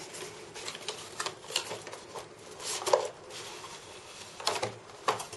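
Cardboard packaging being handled: an inner box sliding out of its outer sleeve, with scattered light taps, clicks and short scrapes.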